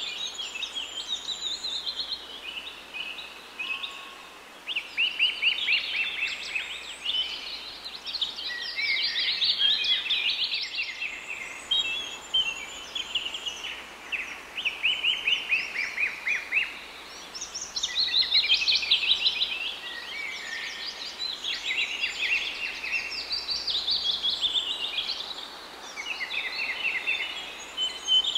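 Small birds chirping in a dense chorus of rapid, overlapping high trills.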